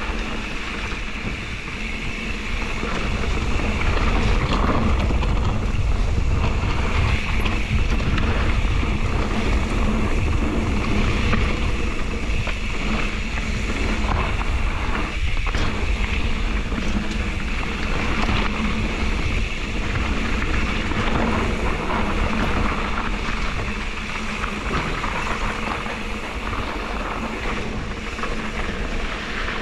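Mountain bike riding fast down a dirt-and-rock singletrack, heard as steady wind noise on a GoPro microphone along with the rumble and clatter of the tyres and bike over rough ground.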